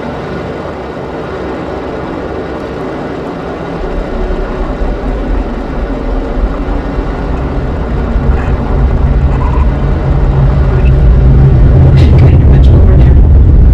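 Atlas V launch roar from its RD-180 main engine and two solid rocket boosters: a deep rumble that grows steadily louder from about four seconds in and is loudest near the end as the sound reaches the viewing site.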